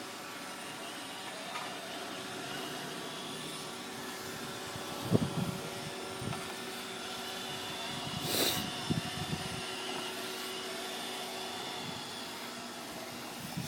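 iRobot Roomba 580 robot vacuum running, a steady whir made of several constant tones over a hiss. A couple of low thumps come about five seconds in, and a short, louder burst of noise follows past the middle.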